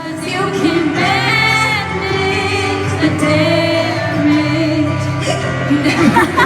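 Live pop concert: a female lead singer holding long notes with vibrato over steady chords from the band, with quick rising and falling vocal runs near the end.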